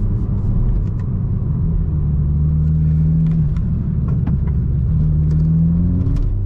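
Car driving with a steady low engine and road rumble. An engine tone rises a little and holds twice, about two seconds in and again near the end.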